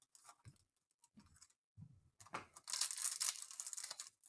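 Foil trading-card pack wrapper being torn open and crinkled by hand: faint small rustles at first, then about two seconds of dense crinkling and tearing starting around halfway through.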